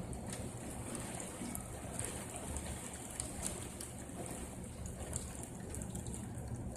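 Rain falling steadily, with irregular drops ticking sharply against nearby surfaces.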